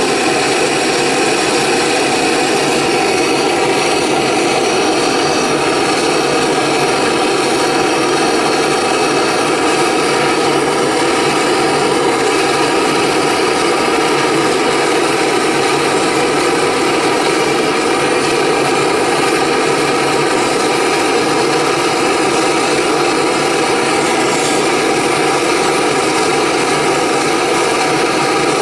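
Gas brazing torch burning steadily, a loud continuous rushing flame noise, as it heats fluxed copper and bronze pieces for silver soldering.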